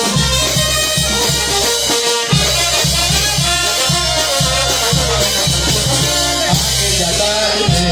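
Peruvian banda music with drums and shakers keeping a steady dance beat in an instrumental passage, with a brief break in the low end about two seconds in.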